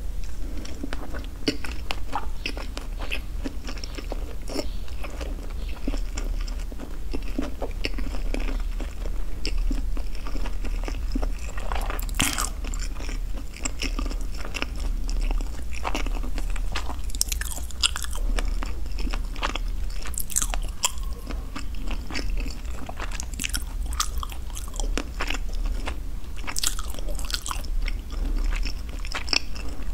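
A person chewing food close to the microphone with the mouth closed: a steady run of small crunches and mouth clicks, with sharper, louder crunches every few seconds.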